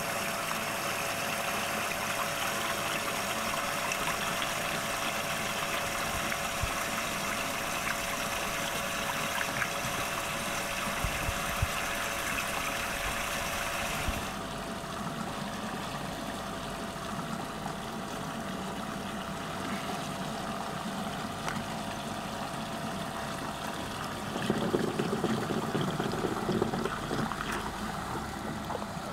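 Water swirling and draining down the open hole at the centre of a whirlpool, a steady rushing sound with a faint steady hum under it. About halfway through the rush turns duller, and it grows louder again near the end.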